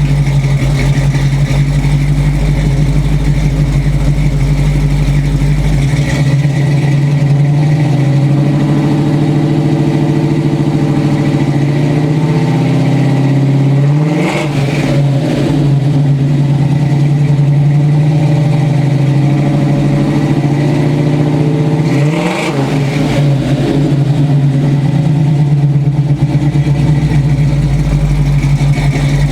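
1967 Chevy Nova's 283 small-block V8 with long-tube headers and Flowmaster 40 series mufflers idling, revved up and let fall back to idle twice, about halfway through and again near the three-quarter mark. The engine is not yet fully warmed up.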